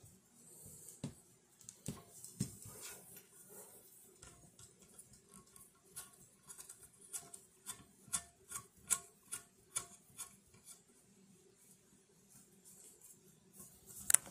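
Handling noise from fitting the black mic mount hardware together: rubbing and scraping of parts, with a run of sharp, regular clicks, about two a second, in the middle.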